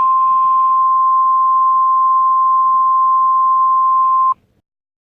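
Emergency-alert warning tone: one loud, steady, high single tone held for about four seconds, cutting off abruptly near the end.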